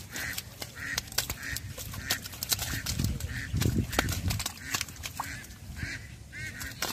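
Short animal calls repeating about twice a second, over many sharp clicks and taps.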